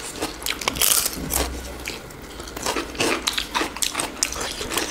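Close-miked eating of fried chicken wings: bites, crunching and wet chewing clicks, with a louder crunch about a second in.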